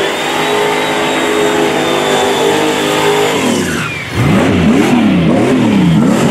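Turbocharged Oldsmobile 442 G-body drag car's engine held at high revs through a burnout, then dropping off about three and a half seconds in. The engine then revs up and down several times in quick succession.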